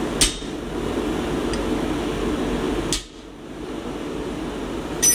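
Hand hammer striking a chisel into hot steel bar: three sharp metallic blows a couple of seconds apart, over a steady low hum.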